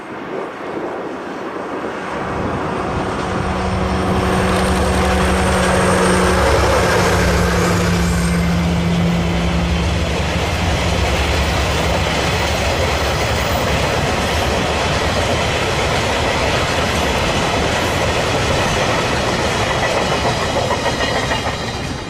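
Diesel freight train passing: the DD51 and DF200 diesel locomotives' engines drone with a deep rumble, their tone stepping slightly lower about six seconds in as they go by. A long string of tank wagons follows, rolling steadily on the rails, fading near the end.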